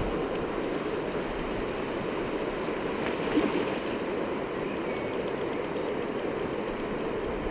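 Steady rush of river water running over a shallow weir and rapids.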